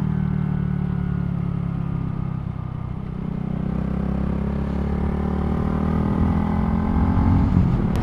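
Honda Grom's 125 cc single-cylinder engine running steadily on the move. The engine note eases off a little about two and a half seconds in, then builds back up over the rest.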